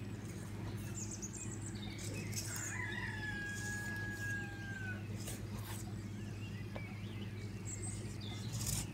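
A wire balloon whisk stirring thick chocolate batter in a stainless steel bowl, its wires scraping and tapping against the metal at irregular moments, over a steady low hum. A thin whistling tone sounds for about two seconds, a few seconds in.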